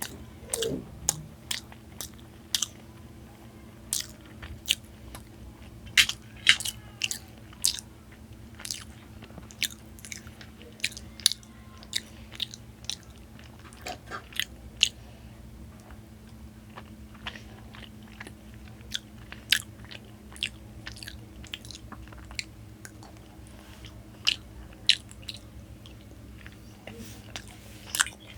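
Close-miked eating of syrupy Indian sweets: chewing, with many short, sharp mouth clicks and smacks at irregular intervals. A steady low hum runs underneath.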